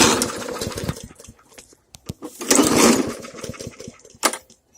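Briggs & Stratton engine on a Hyper Tough push lawn mower being pull-started twice: each pull cranks it over in a rapid rattling burst about a second long that dies away without the engine keeping running. It is hard to start, probably from a flooded engine. A short sharp click comes near the end.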